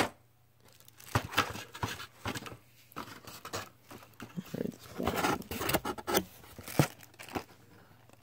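Hands handling a cardboard box and the packed parts inside it: irregular rustling, scraping and light clicks, dying away near the end.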